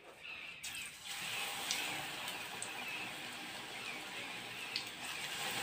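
Pakora batter frying in hot mustard oil: a steady sizzle that starts about a second in as spoonfuls of gram-flour batter go into the oil, with a few sharp pops.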